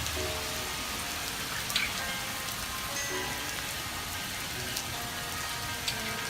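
Heavy rain falling steadily, with two sharper drop hits, under background music of short melodic notes.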